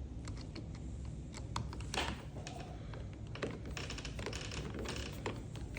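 Screwdriver tightening the through-bolts of a door handle lockset: a run of small irregular clicks and scrapes of metal on metal.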